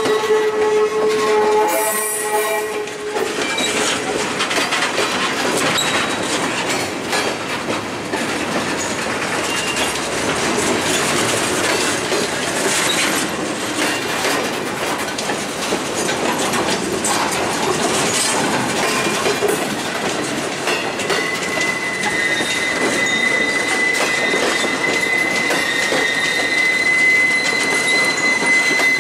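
Railroad flatcars of a freight train rolling past at trackside: steel wheels clattering over the rails. A steady wheel squeal at the start stops about three seconds in, and a higher-pitched wheel squeal comes in about two-thirds of the way through and holds to the end.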